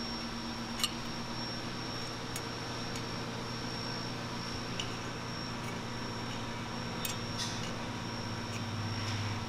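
Steady shop background hum with a few faint, light clicks of bolts being threaded into a motorcycle fork lower with a hex key.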